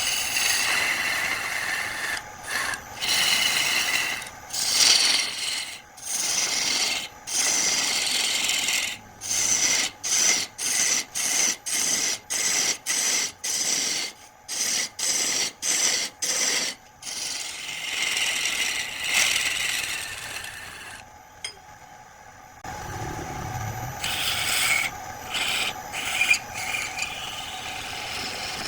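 A tool rasping and scraping against wood in repeated short strokes, about two a second through the middle, pausing briefly a little after two-thirds of the way through before going on.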